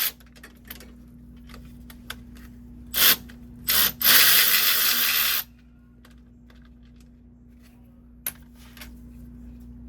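Power tool run in short bursts: two quick spurts about three seconds in, then a longer run of about a second and a half that cuts off suddenly, as bolts come out of a clutch slave cylinder.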